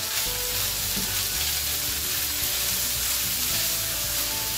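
Mixed vegetables and scrambled eggs sizzling steadily in a frying pan while being stirred together.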